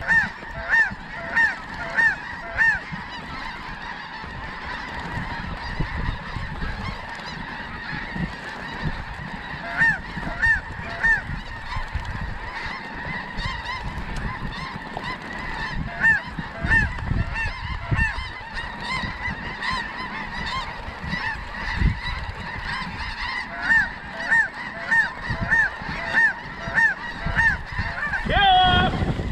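Snow geese honking: a flock's constant chorus, with runs of short, repeated honks about twice a second that come and go, and a louder call near the end.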